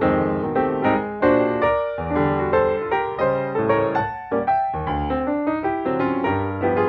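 Background piano music: a steady run of notes and chords, each struck and then fading.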